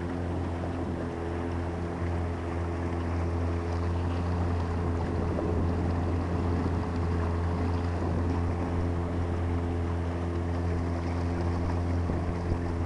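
A boat motor running at a steady cruising speed, a constant low hum with no change in pitch, over the rush of wind and water.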